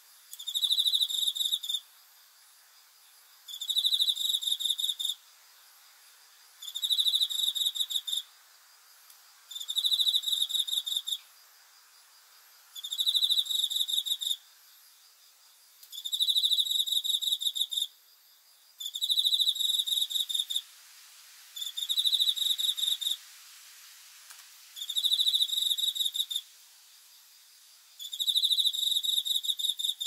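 A field cricket chirping: ten high-pitched trills of rapid pulses, each about a second and a half long, repeating steadily about every three seconds.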